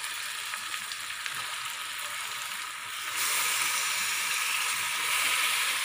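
Hot oil sizzling in a pressure-cooker pot of fried shallots, chillies and curry leaves. The sizzle gets louder about three seconds in as raw chicken pieces are tipped into the oil.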